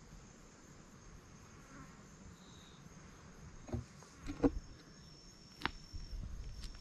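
Insects trilling steadily at a high pitch. A few short knocks and thumps come in the second half, the loudest about four and a half seconds in.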